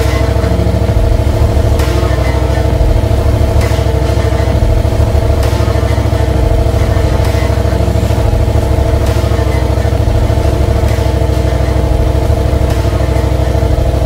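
Motorcycle engine running loud at a steady speed, with a light tick repeating about every two seconds.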